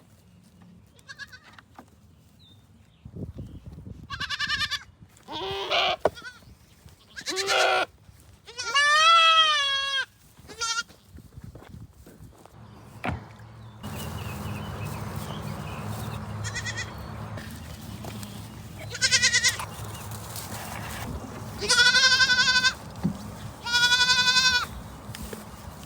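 Goats bleating, about nine separate wavering calls, one of them long and drawn out about nine seconds in. A steady background hiss comes in about halfway through.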